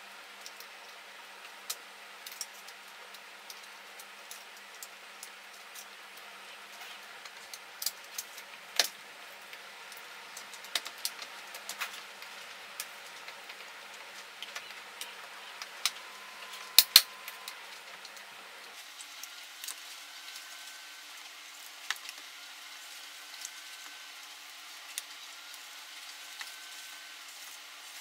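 Scattered small plastic clicks and taps as the housing and clock-spring reel of a steering column switch module are handled and fitted together, with a sharp double click past the middle.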